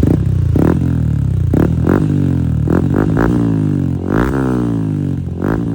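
Yamaha Sniper 155's single-cylinder four-stroke engine breathing through an MVR1 Power Pipe aftermarket exhaust, revved in repeated throttle blips. Each blip rises sharply and then falls back toward idle.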